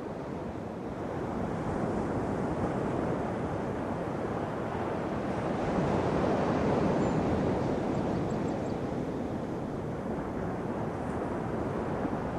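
A steady rushing noise that swells about two seconds in, rises again around six to seven seconds, then eases off slightly.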